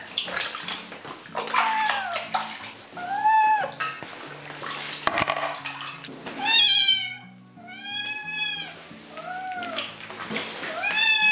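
Ginger kitten meowing again and again, about seven short cries that rise and fall in pitch, in protest at being bathed.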